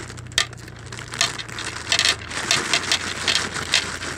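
A plastic snack bag of peanut M&M's crinkling as it is shaken and tipped out, with the candies clattering onto the table. A sharp click about half a second in, then a run of crackles.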